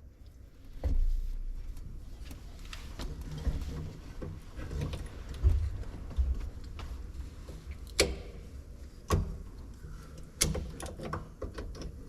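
Scattered metallic clicks, clinks and knocks of hands and tools working on the loader joystick's metal parts, with a few sharper knocks in the second half over low handling rumble.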